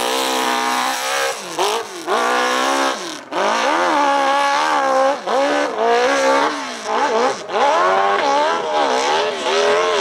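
Open-class hillclimb dirt bike engine (700cc and up) revving hard up the hill. The pitch rises and falls about once a second as the throttle is worked, with a few short drops where the throttle is cut.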